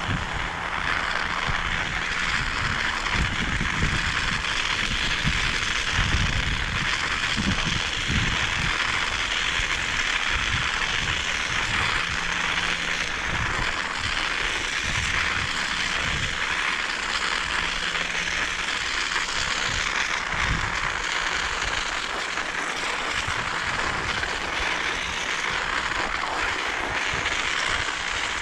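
Wind buffeting the microphone in irregular low gusts over a steady hiss, heaviest in the first few seconds.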